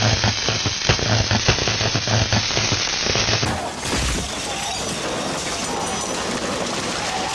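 Destruction sound effects: a dense run of cracks, bangs and breaking-glass crashes over a pulsing low rumble, giving way about three and a half seconds in to a steady rushing noise.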